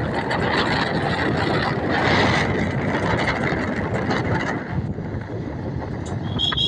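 An auto-rickshaw on the move: a steady rush of engine, road and wind noise inside the open cab. A short high-pitched tone sounds near the end.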